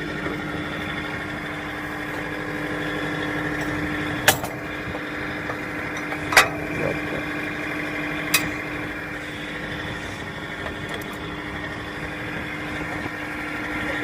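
John Deere 4052R compact tractor's diesel engine running steadily, with three sharp knocks spaced about two seconds apart partway through.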